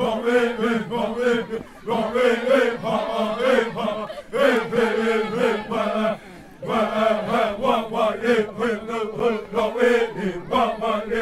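A group of voices chanting in unison on a steady, repeated pitch, in phrases broken by short pauses, the longest about six seconds in.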